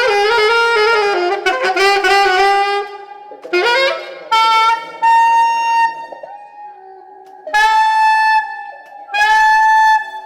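Saxophone playing a series of held notes in short phrases, with an upward glide about three and a half seconds in. During the first three seconds two pitches sound at once, the kind of raspy, rough tone the demonstration is about.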